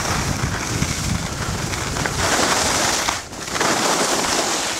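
Skis sliding and scraping over packed snow, a steady hiss that swells twice in the second half, over a low rumble of wind on the microphone.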